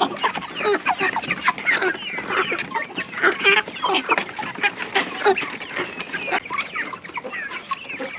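A flock of Improved Kienyeji chickens clucking at feeding time, many short calls overlapping one another with scattered sharp taps among them.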